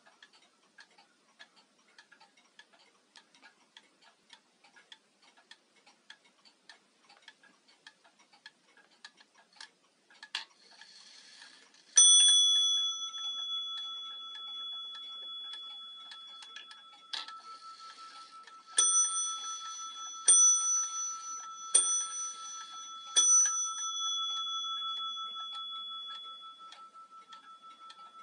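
Warmink Wuba Dutch wall clock ticking faintly, its pendulum swinging. As its minute hand is turned by hand, the striking train sets off: one bell strike about twelve seconds in, then five more strikes about a second and a half apart, each left ringing on.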